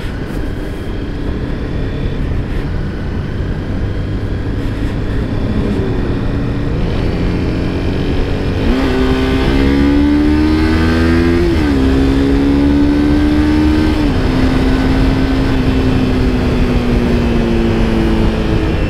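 Honda sport motorcycle's engine accelerating hard, its pitch climbing and then dropping sharply twice, about twelve and fourteen seconds in, as it shifts up, before easing off slowly. Steady wind and road rush on the rider's camera runs underneath.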